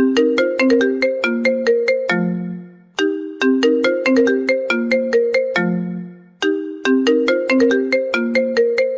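iPhone ringtone playing loudly: a quick, bright plucked melody that loops, each phrase fading out briefly before the same phrase starts again, about three seconds in and again about six and a half seconds in.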